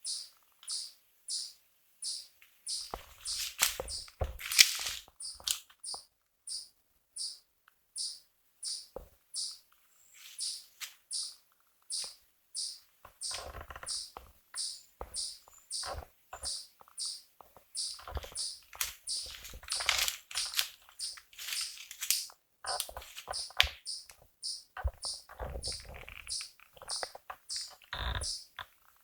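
A small animal's high chirp repeated steadily, about two chirps a second. Scattered rustling and knocks come and go over it.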